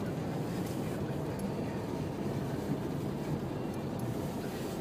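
Steady low rumble of a car's engine and tyres, heard from inside the cabin while driving through snow.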